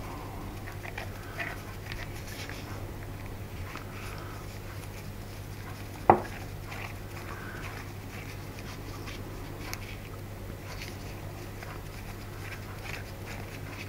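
Faint clicks and scrapes of a small hex driver turning out the cylinder head screws of a model two-stroke glow engine. About six seconds in comes one sharp knock, as a metal hex driver is set down on a stone worktop. A steady low hum runs underneath.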